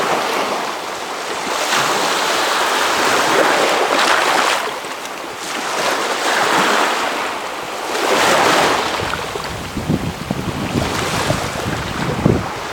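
Baltic Sea waves washing ashore in a north wind, the wash swelling and fading every two to three seconds. Wind buffets the microphone in the last few seconds.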